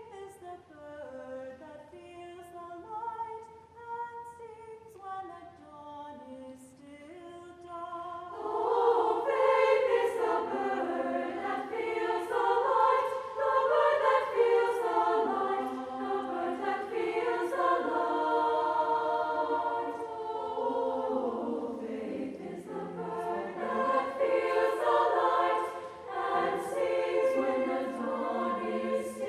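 Women's choir singing a choral piece, softly at first and then fuller and louder from about eight seconds in.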